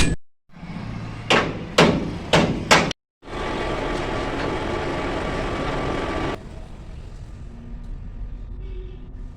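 Four hammer blows on metal in quick succession. After a cut comes a steady machine hum with a thin whine, which stops about six seconds in and leaves quieter workshop noise.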